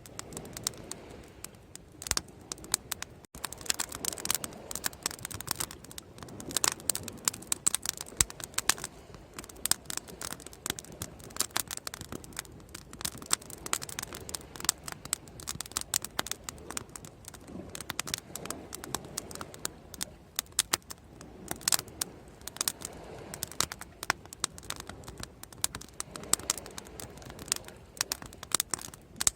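Bonfire crackling steadily, a dense, irregular stream of sharp pops and snaps over a soft, even hiss.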